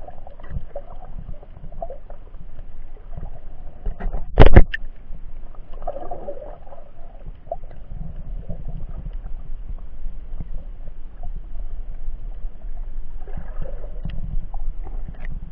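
Muffled underwater water noise and low rumble heard through an action camera's waterproof housing, with one loud knock about four and a half seconds in.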